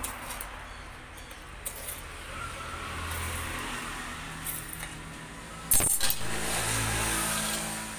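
Road traffic passing, with a sharp metallic clatter about six seconds in as butcher's tools are picked up from a metal-topped table.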